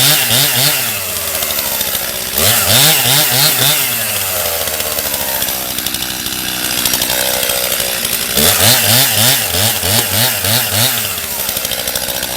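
Stihl MS 271 two-stroke chainsaw with a 20-inch bar running at full throttle, cutting through a large oak log. In three spells the engine note wavers rapidly up and down, several times a second.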